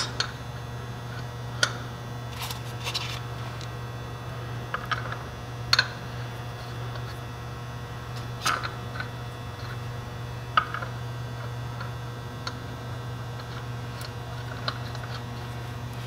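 Irregular sharp metallic clicks and clinks, about eight in all, as lug bolts are handled and threaded by hand into the Power King tractor's rear wheel hub. A steady low hum runs underneath.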